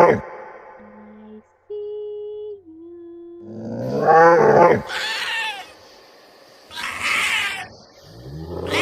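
Cat yowling, a drawn-out cry that rises and falls in pitch about halfway through and starts again near the end, with a short hissing burst between the two. A few seconds of low steady electronic tones come before the first yowl.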